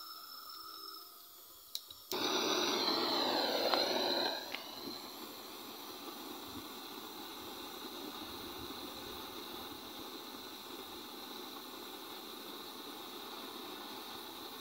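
Portable gas torch flame burning with a steady hiss into the oily exhaust pipe. About two seconds in come two sharp clicks and a loud rushing for about two seconds before the flame settles to an even hiss.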